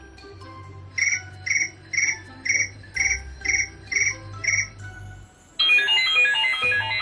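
Cricket-chirp sound effect played through a small Bluetooth speaker: eight even chirps, about two a second. About five and a half seconds in, a synthesized ringtone melody starts.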